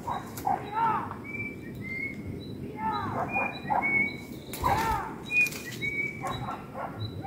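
Hunting beagles baying in the distance on a wild boar's trail, bursts of short rising-and-falling barks repeated through, with small birds chirping in thin high notes. A brief rustle comes about five seconds in.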